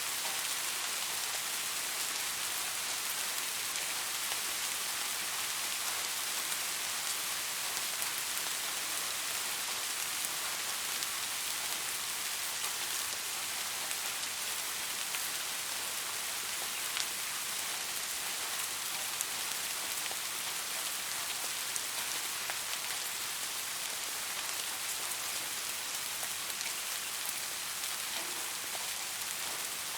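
Soft rain falling steadily: an even high hiss with fine scattered patter of drops.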